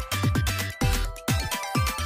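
Background electronic music with a steady beat of deep bass kicks.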